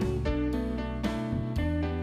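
Background music: plucked guitar notes in a steady rhythm over a low bass line.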